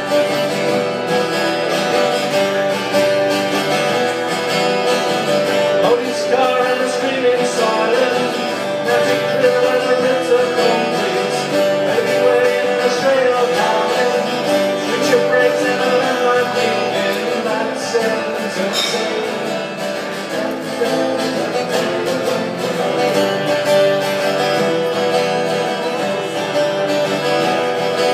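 Two acoustic guitars playing a song together, a steady run of plucked chords and notes.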